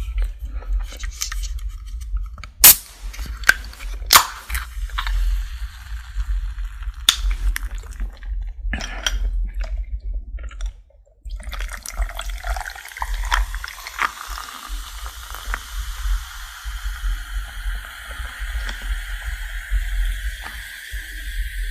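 Close-miked crunching of fried chicken crust: sharp, separate cracks of bites and chewing. About halfway through this gives way to a steady hiss that slowly rises in pitch.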